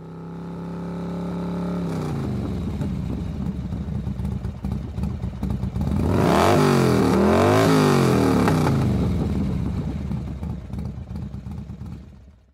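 Motorcycle engine fading in and running steadily, then revved up and down several times about six to nine seconds in, the loudest part, before dying away.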